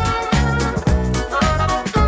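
Upbeat background music with a steady beat: funk-style bass, drums and horns.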